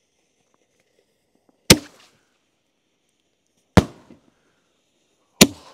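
Three sharp, loud bangs of 5-inch Nishiki Kamuro willow canister shells breaking in the air, fired one after another, each trailing off in a short echo. They break hard and loud.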